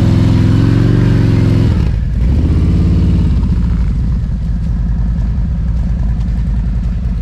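Cruiser motorcycle engine revving hard for a run-up on soft beach sand. About two seconds in its sound drops suddenly as the bike rides away, and the engine keeps running.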